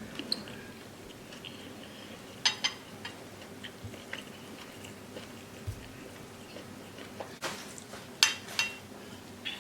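Close-up eating sounds of egusi soup and fufu, with soft chewing and small mouth clicks. A few sharp, ringing clinks of dishware come through, one about two and a half seconds in and two close together near the end.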